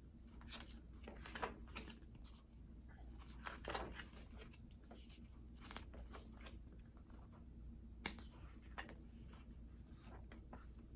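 Pages of a glossy album photobook being turned and handled: soft, irregular paper swishes and rustles, with a sharp click about eight seconds in.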